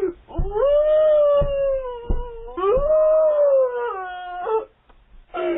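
A woman wailing in two long, drawn-out cries, with a few heavy thuds of her banging on the front door in the first two seconds, heard through a doorbell camera's narrow-sounding microphone.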